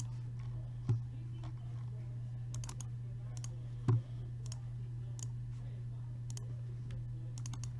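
Scattered light clicks, like a computer mouse and keyboard being worked, over a steady low hum, with two louder knocks about a second in and about four seconds in.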